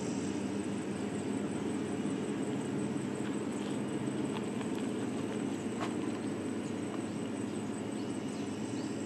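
Diesel engine of a heavy road-construction machine running steadily, a constant low rumble with a faint hum, and a few faint ticks around the middle.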